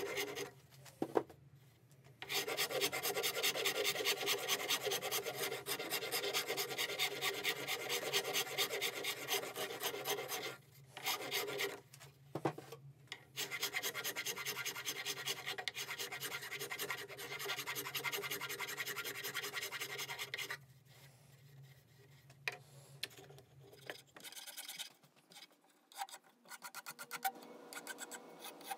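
Hand file shaping the edges of a walnut saw handle: a rapid run of scratchy rasping strokes on the wood, paused briefly twice, then lighter, scattered scratching for the last several seconds.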